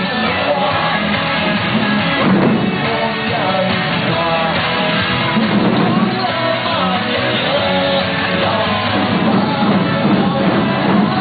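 Children beating taiko drums with sticks in time with loud music that has singing in it.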